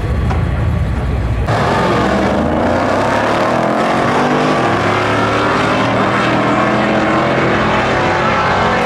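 Two supercharged drag-racing cars rumbling at the start line, then launching hard about a second and a half in, engines at full throttle with their pitch climbing as they pull away down the strip.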